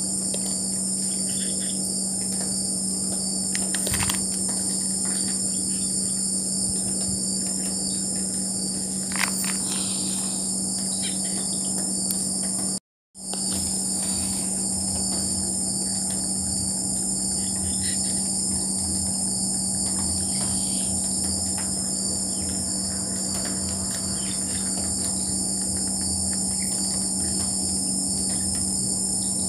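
Night chorus of crickets and other insects, a steady high-pitched shrilling, over a steady low hum. The whole sound drops out for a moment about halfway through.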